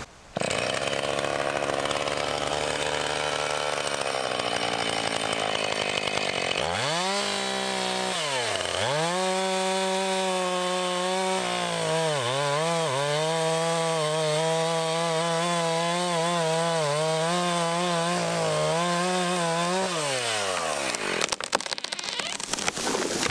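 Husqvarna two-stroke chainsaw idling, then opened to full throttle about seven seconds in for the back cut through a rotten birch trunk. Its pitch sags sharply twice as the chain bogs in the wood, then holds high. It winds down around twenty seconds in, followed by sharp cracks as the hinge wood gives and the tree starts to tip.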